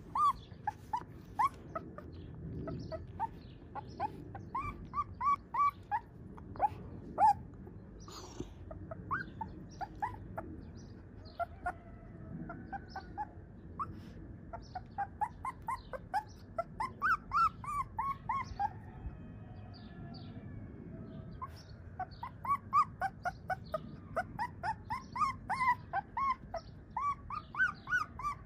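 Very young Siberian husky puppy whimpering, a long string of short, high squeaks coming in quick runs with brief pauses between them.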